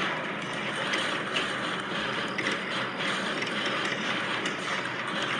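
Battle soundscape: a steady, dense din of clatter and crackle made of many small overlapping clicks, with no single loud shot standing out.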